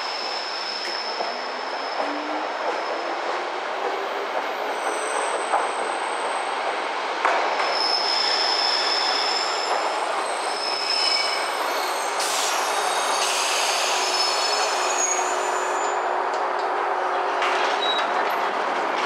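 A Chichibu Railway 1000 series electric train (an ex-JNR 101 series) pulls into the platform at low speed under steady running noise, with high wheel squeals and a few sharp clicks.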